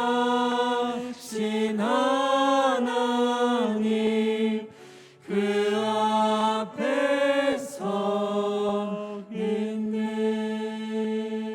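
Church praise team singing the closing phrases of a Korean worship song in several sung phrases with short breaks, ending on a long held final note.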